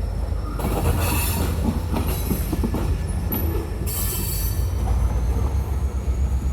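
Freight train of covered hopper cars rolling past, with a steady low rumble from the wheels and scattered clacks over the rail joints. High metallic wheel squeal comes and goes several times.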